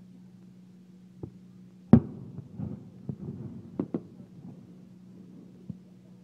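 Aerial firework shells bursting in a series of booms, the loudest about two seconds in and a quick pair near four seconds, with a steady low hum underneath.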